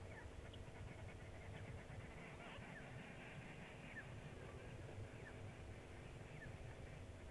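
A bird repeating a short falling call about once every second, with a brief run of quicker chattering calls around two to three seconds in, over a faint steady low rumble.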